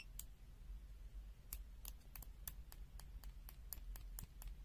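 Faint, quick clicks of a multimeter's test-lead tips being tapped together: one early click, then a run of about four to five a second from about a second and a half in. The continuity beeper stays silent, because the meter is slow to latch its continuity beep.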